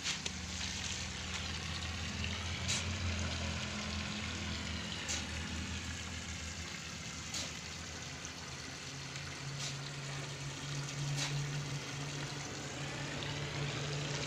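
Outdoor construction-site background: a steady hiss under a low motor-like hum that shifts higher about nine seconds in, with a sharp tap every couple of seconds.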